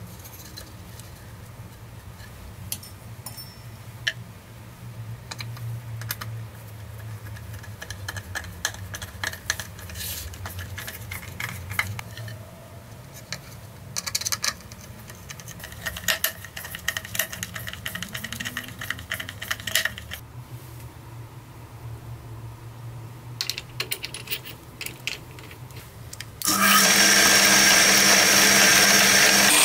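Light scratching, tapping and handling noises of a wooden block being laid on a grinder cutting disc and traced around by hand. About three-quarters of the way in, a drill press starts and runs steadily and loudly with a high whine, its cutter biting into the wooden board over the disc.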